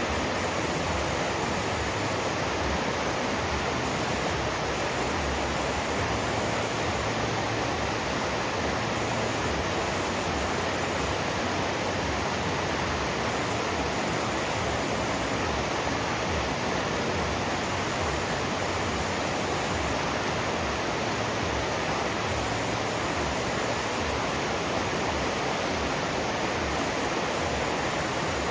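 River water rushing steadily, an even unbroken noise with no separate splashes.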